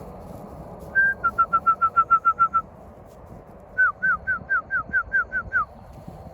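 Two runs of clear, loud whistled notes. The first is a short held note followed by about ten quick repeated notes. The second, about a second later, is a run of about nine downward-sliding notes.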